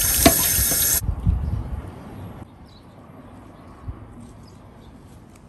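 Water running from a tap, cut off abruptly about a second in, then some low handling noise and a quiet room.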